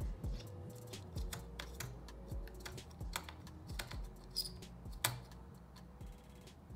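Irregular light clicks and taps, a few each second, from hands working on a laptop.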